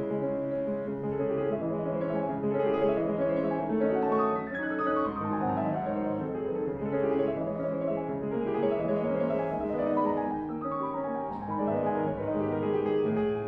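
Solo classical piano played on a Steinway grand: continuous dense passages with fast runs sweeping across the keyboard.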